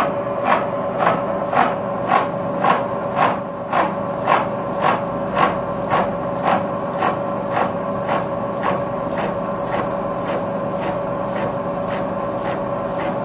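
Milling machine cutting a spline groove in a metal motorbike shaft with a disc cutter at 95 RPM and a slow feed of about 1.25 inches a minute. A steady machine whine carries a regular cutting tick about twice a second.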